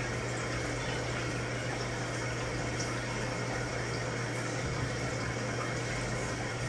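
Aquarium aeration running: a steady bubbling of air through the tank water, with a low steady hum underneath.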